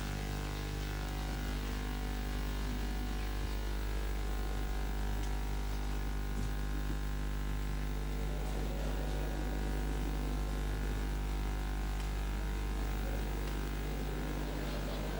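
Steady electrical mains hum with a buzz of many overtones, over a bed of hiss.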